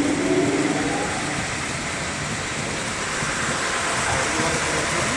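Veneer and plywood sanding line running with its sanding rollers turning: a steady machine noise with a humming tone that fades out about a second in.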